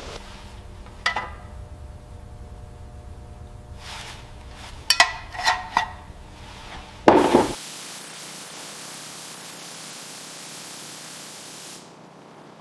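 Sharp metallic clinks and knocks of tools being handled, each with a brief ring: one about a second in and a quick cluster around five to six seconds. A short burst of noise follows just after seven seconds, then a steady faint hiss.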